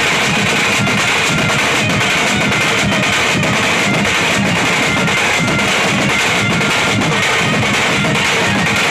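Loud live band-party music: electric guitar playing over drums with a steady pulsing beat, without a break.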